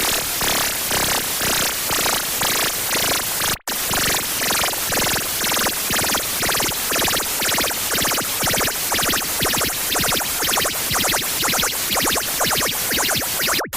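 Harsh noise music: loud, distorted static filling the whole range and pulsing rapidly. It cuts out for an instant about three and a half seconds in, and again near the end.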